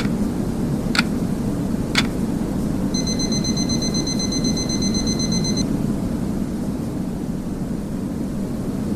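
Steady deep masking noise, with three short ticks a second apart and then one electronic beep held for about two and a half seconds: a timer's countdown and alarm marking the end of a session.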